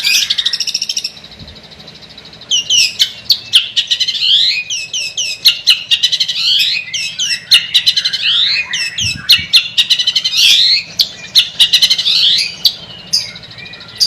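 Long-tailed shrike singing a fast, chattering song of sharp clicks and quick sweeping whistled notes, broken by a short pause about a second in before it resumes.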